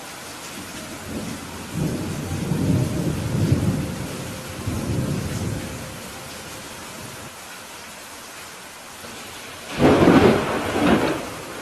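Steady rain with thunder: a long low rumble rolls from about two to five seconds in, then a louder, sharper thunderclap comes near the end.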